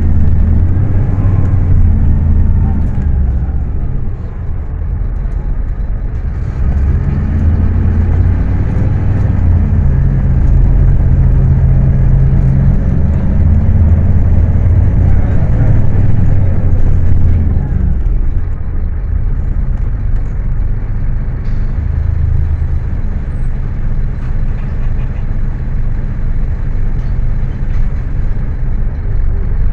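Scania K310UA city bus's five-cylinder diesel engine running under way, heard from on board. Its note rises and falls several times as the bus speeds up and slows.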